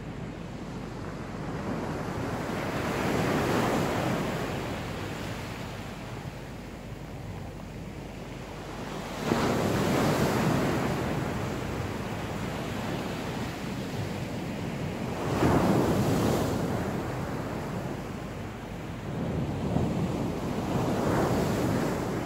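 Sea waves breaking on the beach: four waves in turn, each a swell of rushing noise that builds and fades over a few seconds, the two loudest crashing in suddenly near the middle and about two thirds of the way through.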